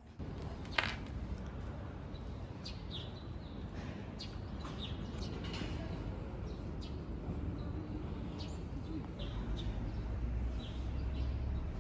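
Small birds chirping, many short high calls scattered across a few seconds, over a steady low outdoor rumble.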